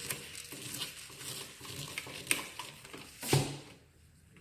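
Handling noise from electrical work at a wall box: scattered clicks and rustles of wires, a receptacle and tools being handled, with one louder knock about three seconds in.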